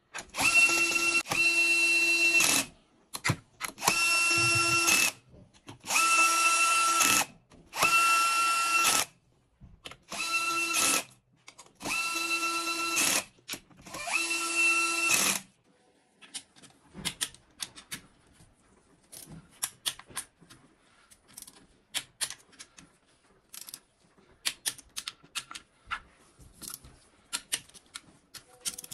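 Cordless drill-driver running bolts into the oil pan flange of a BMW N47 engine: seven short runs of a steady motor whine, each a second or two long, one bolt after another. About halfway through the whine stops and only scattered light clicks follow, from a ratchet torque wrench being worked on the bolts.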